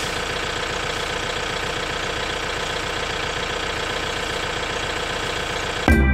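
A vehicle engine idling steadily. Near the end, music cuts in suddenly and louder.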